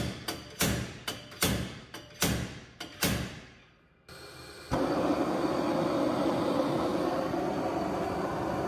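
Slide-hammer puller striking hard, ringing metal blows, several in the first three seconds, against a front wheel bearing so seized and corroded in its aluminium housing that the blows do not drive it out. About five seconds in a steady, loud noise begins and runs on.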